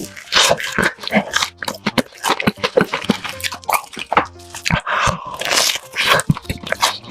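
Close-up eating sounds: loud crunching bites and chewing of crispy food, a rapid crackle of many sharp crunches, over background music.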